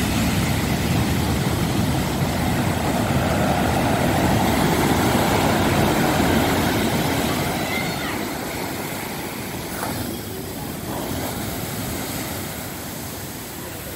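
Storm surf: big waves breaking and white water rushing up the beach against a seawall, a continuous rumbling rush that is loudest for the first seven seconds or so and then eases.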